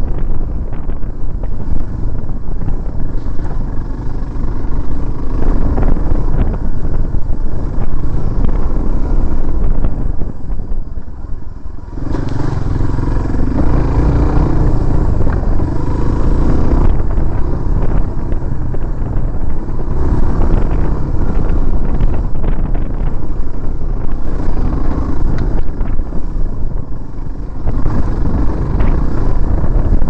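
Dual-sport motorcycle engine running while the bike is ridden along a rough dirt trail. The sound drops briefly about ten seconds in, then comes back louder and fuller at about twelve seconds.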